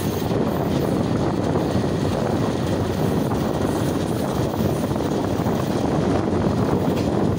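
Moving passenger train heard from an open window: a steady rumble of the running train mixed with the rush of wind on the microphone.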